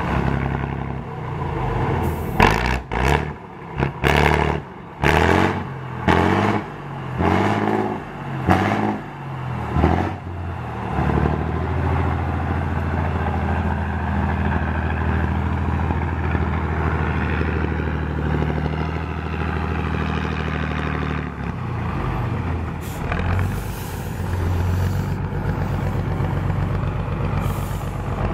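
Eight-wheeled off-road trial truck's engine revved in a string of short bursts, with sharp knocks among them, over the first ten seconds or so. It then runs at a steady pitch as the truck crawls over the course, dipping and picking up again about three-quarters of the way through.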